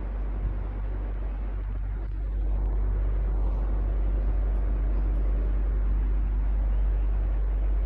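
Electric fan running steadily: a low hum under an even rush of moving air, growing a little louder about two and a half seconds in.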